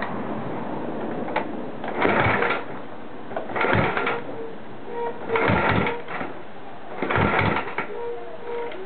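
Norton Manx 500 single-cylinder engine being kicked over four times, about every second and a half, each kick a short burst of the engine turning over without starting. It won't fire because the carburettor floods it.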